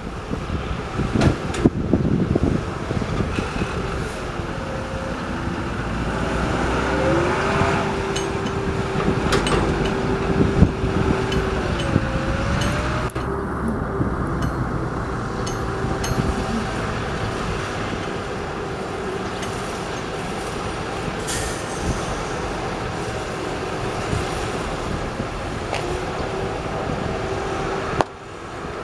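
Heavy construction machinery running: a low engine rumble with a steady whine that bends up and down in pitch a few times, and scattered knocks, most of them in the first couple of seconds.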